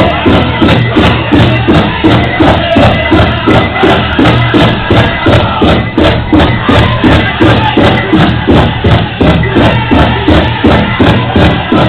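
Pow-wow drum group: a big drum struck in a steady beat, about three strikes a second, under the singers' voices, accompanying the dancing.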